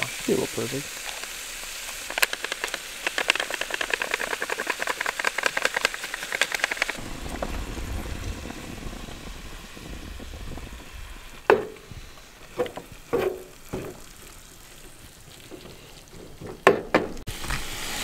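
Food sizzling and crackling in a pan for about the first seven seconds, as taco filling cooks. It then gives way to a low steady hum broken by a few sharp clanks.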